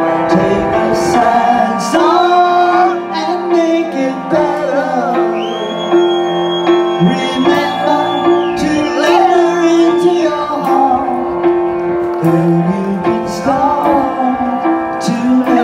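Live cover band playing through a PA: electric guitars with a sung vocal line. A long, high held note sounds in the middle.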